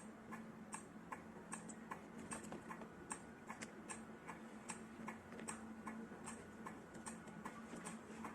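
Faint ticking, two or three light ticks a second, over a low steady hum.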